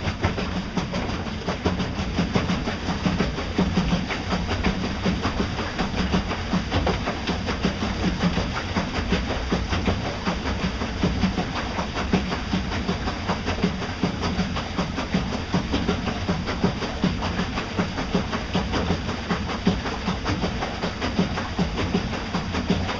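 Pontoon boat under way at slow speed on an electric outboard: a steady, dense rattling rumble of water slapping the hulls and the craft vibrating, with a thin steady high tone running through it.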